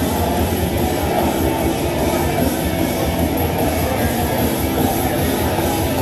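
Rock music playing steadily.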